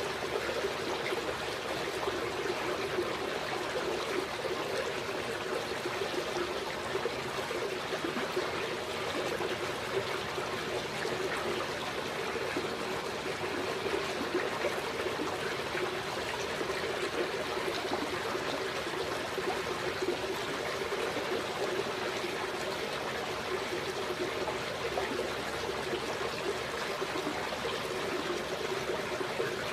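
Steady trickling of running water, even and unbroken throughout.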